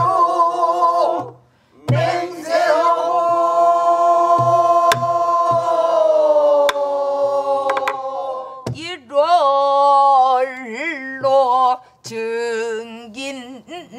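Pansori singing: long held notes that slowly sink, then a wide, shaking vibrato, with several voices singing together. A buk barrel drum accompanies them with low thumps and a few sharp stick clicks.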